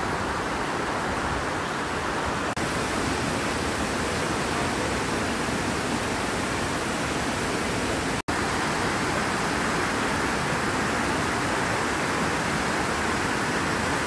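Waterfall: a steady rush of whitewater pouring over a rock ledge and falling. It cuts out for an instant about eight seconds in.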